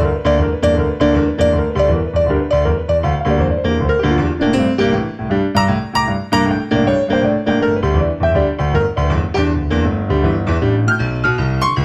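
Background piano music: a steady stream of struck notes in an even rhythm.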